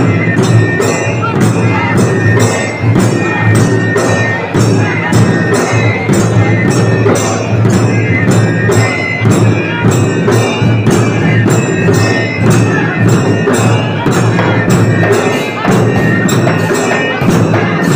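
Large dhangari dhol drums beaten with sharp metallic clashes in a fast, steady rhythm of traditional folk music.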